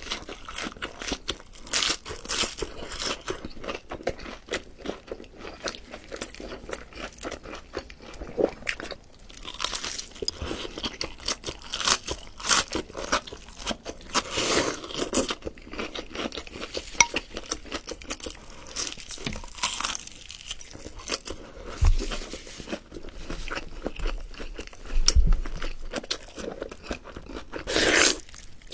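A person chewing and biting crunchy food close to the microphone, with a continual run of crisp, uneven crackling crunches and louder bites every second or two.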